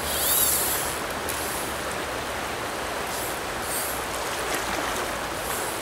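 Small rocky stream running steadily over riffles, a constant rushing of water, with a few brief high swishes along the way.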